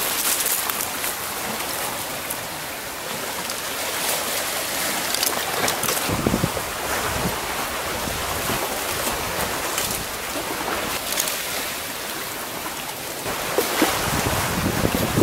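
Sea waves washing against a rocky shore, a steady rush that swells about six seconds in and again near the end, with wind buffeting the microphone.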